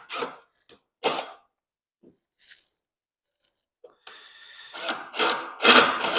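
A short cough-like vocal sound about a second in. Then, from about four seconds in, a cordless drill runs with a steady motor whine, driving a screw with a washer into the wooden reel platform, and grows louder as the screw goes in.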